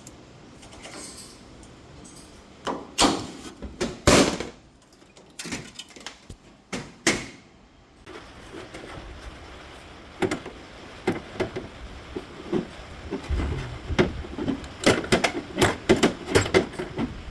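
Scattered knocks, clicks and clinks of hand tools and parts being handled while a brake bias adjuster is fitted to a race car's master cylinders. Two loud knocks come about three and four seconds in, and a quick run of clicks comes near the end.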